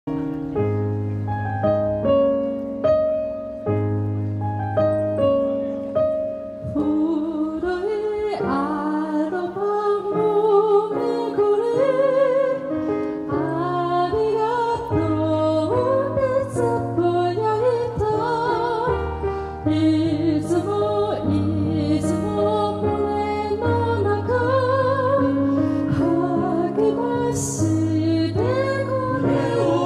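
A piano plays a slow introduction of repeated chords. About eight seconds in, a mixed vocal quartet of two women and two men comes in, singing in a classical style with vibrato, amplified through microphones over the piano.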